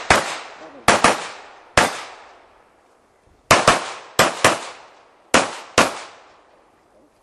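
Handgun shots in an IPSC practical shooting stage, about ten in all. Most come in quick pairs with pauses between, typical of two shots fired at each target, and each shot has a short echoing tail.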